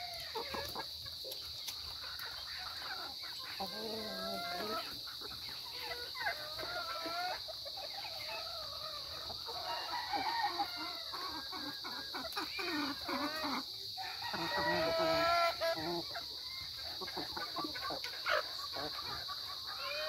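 Chickens clucking and calling while they feed, short pitched calls one after another, loudest about three-quarters of the way through. A steady high-pitched hum runs underneath.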